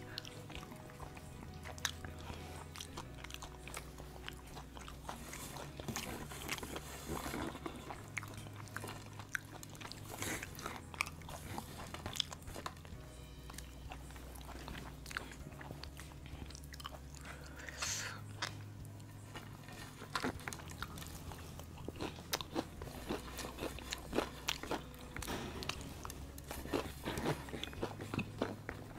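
Close-up crunching and chewing of crispy fried-chicken bits, with many short sharp crackles, over quiet background music with a bass line that changes note every second or two.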